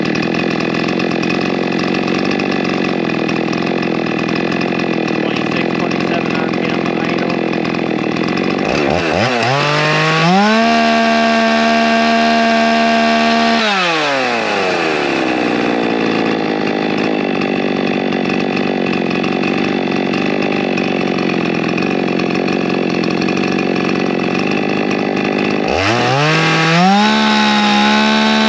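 Poulan Pro Super 380 60cc two-stroke chainsaw warming up: it runs at a steady low speed, is revved up to a high steady whine about ten seconds in, drops back after about three seconds, and revs up again near the end. The high-speed mixture has not yet been tuned.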